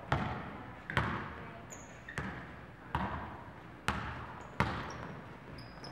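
Basketball being dribbled on a gym floor: six bounces about a second apart, each echoing in the hall.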